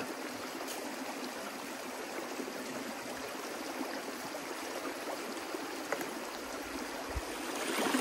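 Creek water running steadily in a shallow stream, with a soft low thump about seven seconds in.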